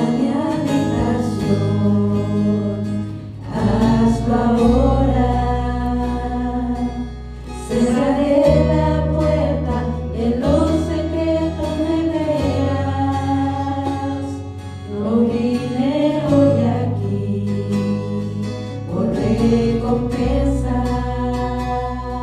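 Christian worship band music: voices sing long phrases of a few seconds each over held bass notes.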